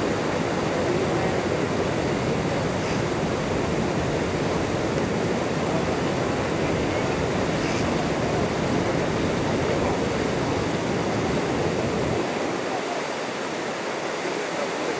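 Steady rushing of water as an elephant swims and splashes through a canal. A low rumble drops away about twelve seconds in.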